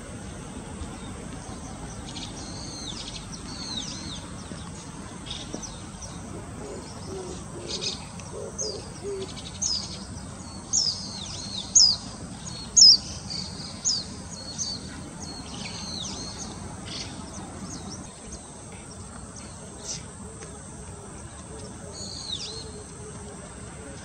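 Small birds calling: a run of sharp, high chirps that sweep downward, loudest in the middle of the stretch, over steady background noise.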